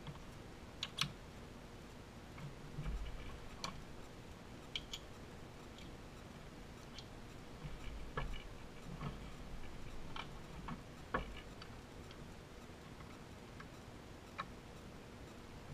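Irregular light clicks and taps of small containers and tools being picked up, set down and opened on a watchmaker's bench, including a plastic oil pot. A faint steady hum runs underneath.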